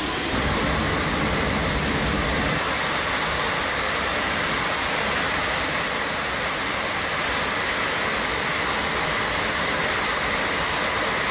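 Loud, steady rushing roar inside an Airbus A321's cabin in flight: airflow and engine noise, with air rushing past a hole an explosion blew in the fuselage.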